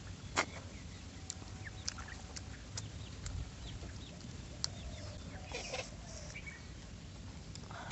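Close eating sounds of rice and snail curry taken by hand: short wet clicks and smacks, the sharpest about half a second in, and a brief rustle a little past the middle. Fowl cluck in the background.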